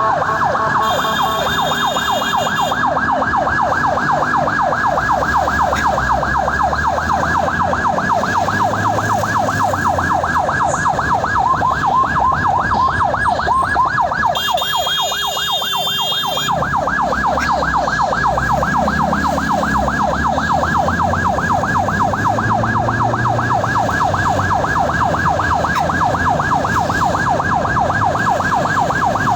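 Ambulance electronic siren in fast yelp mode, sweeping rapidly upward several times a second without a break, over a low vehicle rumble. A short, higher-pitched tone cuts in twice, about a second in and about halfway through.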